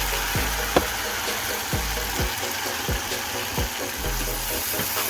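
Chili-oil and soy sauce base sizzling steadily in a pan on a low flame, with soft knocks about twice a second.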